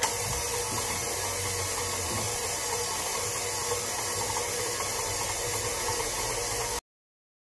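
KitchenAid 5-quart bowl-lift stand mixer running steadily, its flat beater mixing a stiff dough in the stainless steel bowl. It cuts off abruptly near the end.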